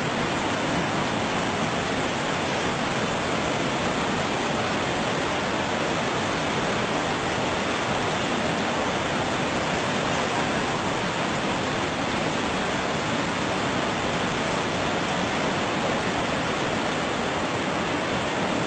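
Steady rushing of a muddy river in flood and the waterfalls pouring into it, an even noise with no change.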